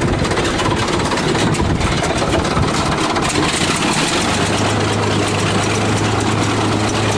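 Engine idling steadily, with a steady low hum that sets in about four seconds in.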